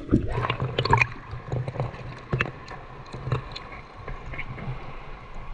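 Water sloshing and splashing, with irregular clicks and knocks, loudest within the first second and again briefly about two and a half seconds in.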